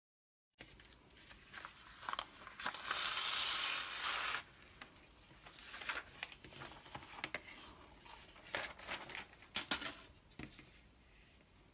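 Clear tape and spray-glued cotton fabric being peeled off printer paper: the paper rustles and crackles. About three seconds in comes a steady ripping hiss lasting nearly two seconds as it pulls away, then scattered crinkles that die down near the end.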